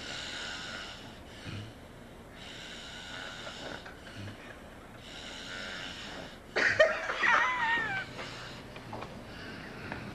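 A sleeping man snoring, a breath about every two and a half seconds carrying a thin whistling tone. About six and a half seconds in comes a louder, squeaky sound that wavers in pitch for about two seconds.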